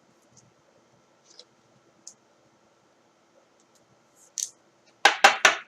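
Trading cards and their packaging handled on a table: faint scattered clicks, then a short hiss and three loud rustling strokes in quick succession near the end.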